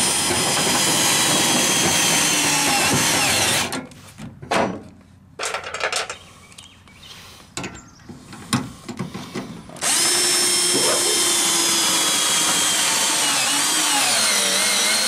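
Cordless drill driving self-tapping screws through a steel bracket into a pickup bed wall. There are two runs of steady motor whine, its pitch wavering as the screw bites. The first stops about four seconds in and the second starts about ten seconds in, with a few clicks and knocks between them.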